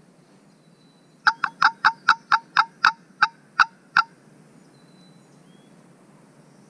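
A run of about eleven loud, evenly spaced hen-turkey yelps, each note breaking from a higher to a lower pitch, played by the hunter on a hand-held turkey call to draw a gobbler.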